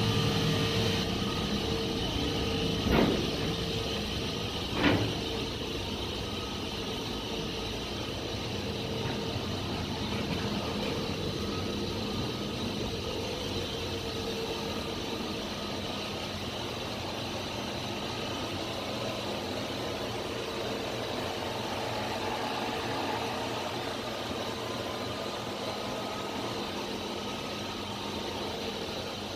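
Steady machinery hum in a cruise ship's Azipod propulsion room: an even whir with a few constant tones running through it. Two brief knocks about three and five seconds in.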